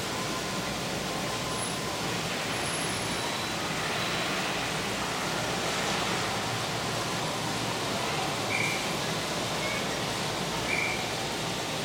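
G-scale model freight train rolling past on its track, a steady rolling noise that swells a little as the cars pass closest. A couple of brief high squeaks come near the end.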